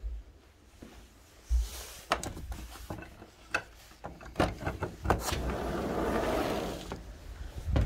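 Sliding glass patio door being unlatched and opened: a low thump, then a series of sharp clicks and knocks, then a steady rolling rumble for about a second and a half as the door runs along its track.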